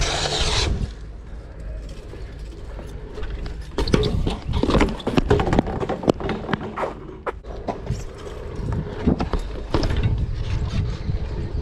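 A BMX bike rolling over skatepark concrete, with a steady rumble from the tyres and a run of sharp knocks and rattles from the frame, chain and pedals as the rider throws and lands tricks.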